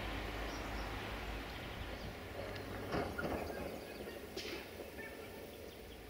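Faint outdoor background noise with a low rumble and a few faint bird chirps.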